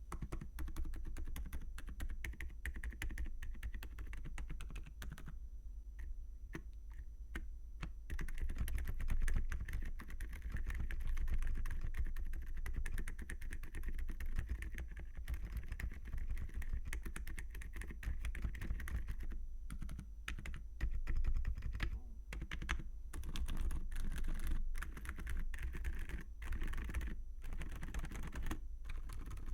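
Typing on a Gamakay TK75 V2 mechanical keyboard with Gamakay Phoenix V2 silent linear switches and ceramic keycaps: a steady run of quick, soft keystrokes, with a couple of short stretches of sparser, separate presses.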